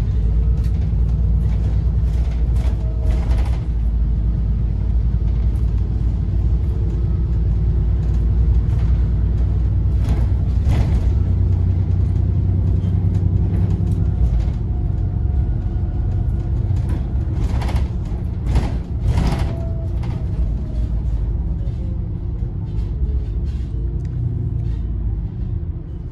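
Double-decker bus under way, heard from the upper deck: a steady low rumble of engine and road with a pitched hum over it. Sharp rattles and knocks from the body come around three, ten and eighteen seconds in.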